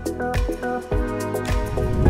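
Background music: plucked notes over a bass line with a steady beat.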